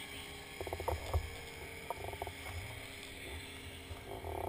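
Outboard motor of a small passing skiff running steadily, with the boat's wake slapping and knocking against the kayak's hull in short clusters about half a second in and again around two seconds in.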